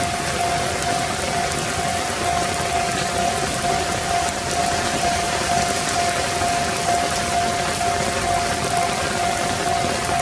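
Japanese railway level-crossing alarm ringing its repeating electronic bell tone evenly, over a steady hiss.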